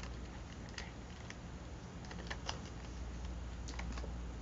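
Faint, scattered light clicks and paper rustles as fingers press and smooth a glued paper cutout onto a journal page, over a low steady hum.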